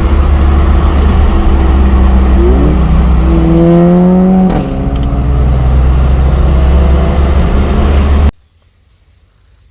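Motorcycle engine accelerating under heavy wind rumble, its pitch climbing then dropping sharply at a gear change about four and a half seconds in before holding steady; the sound cuts off abruptly near the end.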